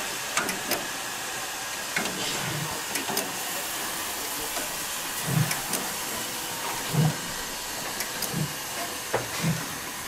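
Steam locomotive of class 35.10 rolling slowly past, with a steady hiss of steam escaping from its cylinders. Soft low thumps come at uneven intervals, and sharp clicks are scattered throughout.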